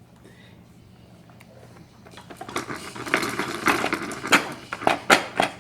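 Plastic toys on a baby jumperoo rattling and clattering. It builds from about two seconds in to a run of sharp clacks near the end.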